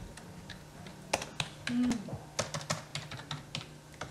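Typing on a computer keyboard: irregular runs of sharp key clicks with short pauses between them, over a low steady hum.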